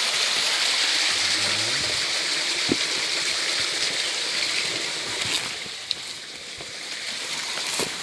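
Steady rushing of a small forest stream running over little waterfalls, which grows quieter about five seconds in, with a few sharp clicks of footsteps on the leaf-littered bank.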